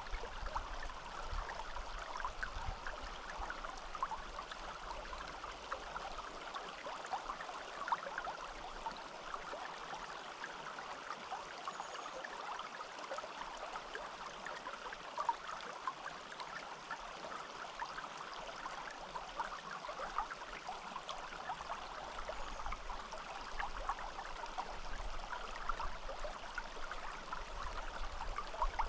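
Small forest stream flowing steadily, water trickling and splashing over stones.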